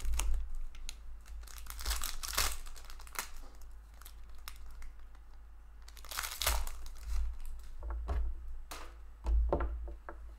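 Crinkling and tearing of an Upper Deck hockey card pack's foil wrapper as it is handled and ripped open, in several short rustling bursts, the loudest about six seconds in and near the end.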